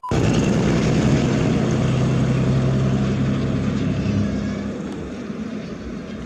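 A motor running with a steady low hum under a dense rumbling noise. It starts abruptly and slowly fades.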